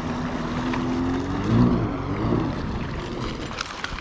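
Personal watercraft (jet ski) engine running at low speed close by, rising briefly in pitch and loudness about a second and a half in, then settling lower and fading a little toward the end.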